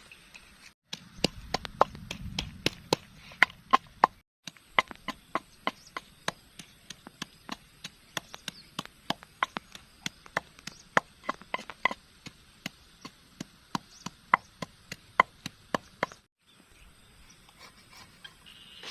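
Quick, irregular chopping strikes, several a second, in three runs broken by short cuts in the sound.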